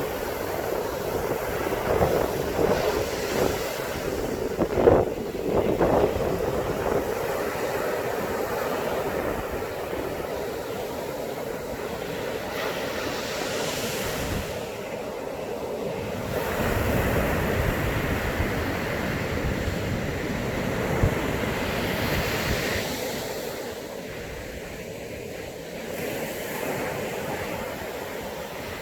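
Sea surf breaking and washing up the beach in a continuous rush, swelling in the middle and easing near the end, with wind buffeting the smartphone microphone.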